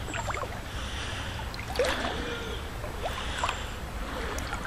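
Wading through a river: water sloshing and splashing around the legs in several uneven strokes, over a steady trickle of flowing water.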